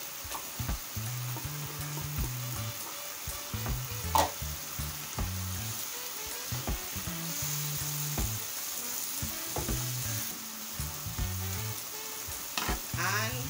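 Prawns, tomato and peppers sizzling in a non-stick frying pan as a slotted spatula stirs them, with scattered scrapes and knocks of the spatula on the pan; the sharpest knock comes about four seconds in.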